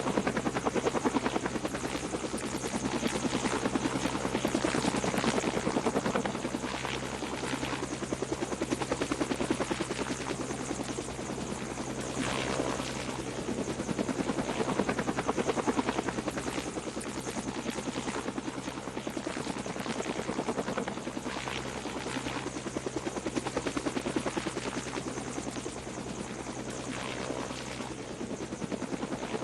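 Blizzard wind gusting hard against the microphone, a dense rushing noise with a rapid flutter that swells and eases.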